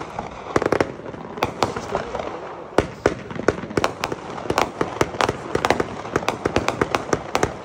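Fireworks going off in a rapid, irregular string of sharp reports, several a second, coming thicker in the second half.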